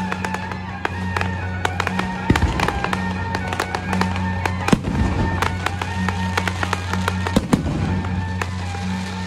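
Aerial fireworks firing and bursting: a dense run of sharp crackling pops, with deeper thuds about two, five and seven and a half seconds in, over music playing.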